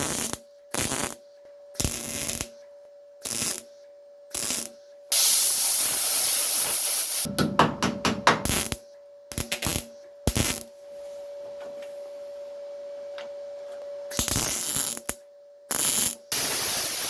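Welder tacking a steel repair panel into a car's windscreen pillar: a run of short crackling, hissing welds, one held for about two seconds and a rapid string of crackles, then a few more tacks near the end.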